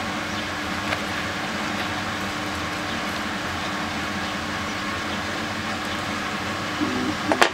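Steady background noise with a low hum throughout, and one sharp click near the end.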